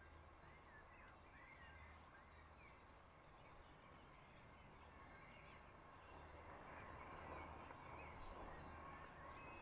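Faint songbirds chirping and twittering in short calls over a soft background hiss, which grows a little louder about six seconds in.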